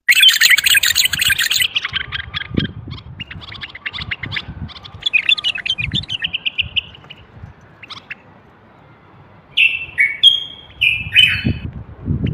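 Common bulbul calling: a burst of rapid chattering notes, then scattered chirps and short trills, and a few loud whistled phrases near the end.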